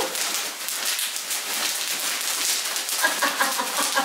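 Clear plastic packaging crinkling and crackling as it is handled around an office chair armrest. A woman's voice joins in about three seconds in.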